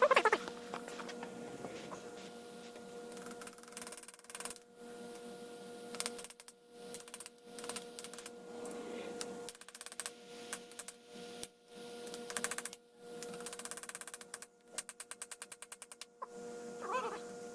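Dead blow hammer tapping a rear main seal wear ring onto a 7.3 Power Stroke crankshaft flange: scattered light knocks, then a quick run of clicks near the end, over a steady hum. The ring is not going on.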